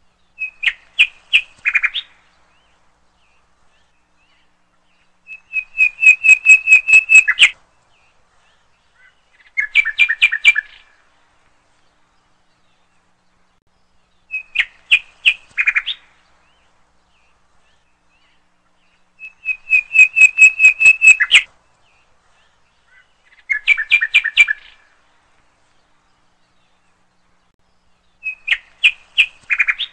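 Bird song in short phrases of rapid repeated chirps, seven phrases with gaps of a few seconds between. The same three phrases come back in the same order about every 14 seconds, as from a looped recording, with nothing else beneath.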